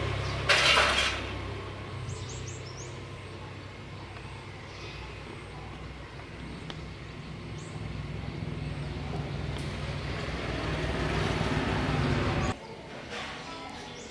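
A low, steady mechanical hum that grows louder over several seconds and then cuts off abruptly about twelve and a half seconds in. A brief hissing burst comes about half a second in, and birds chirp faintly.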